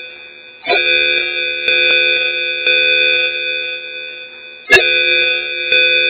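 Call-alert sound effect: a looping melody of held, ringing notes, a new note about every second, with the phrase starting over about every four seconds.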